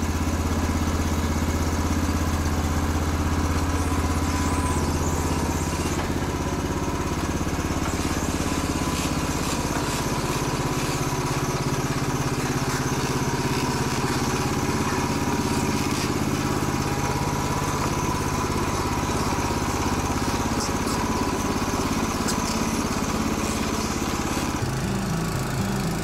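A small petrol engine running steadily. Its note changes and turns choppier near the end.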